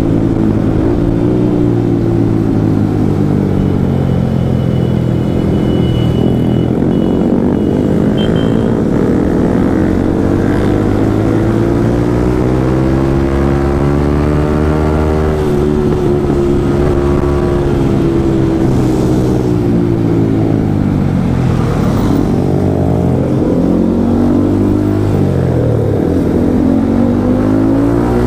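Yamaha MT-15's single-cylinder engine running on the move, its pitch rising and falling again and again as the rider accelerates, shifts gear and eases off.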